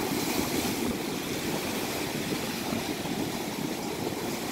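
Lake Michigan waves breaking and washing up the beach in a steady, rushing surf.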